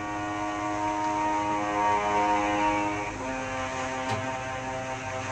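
Background music: soft sustained chords that change to a new chord about three seconds in.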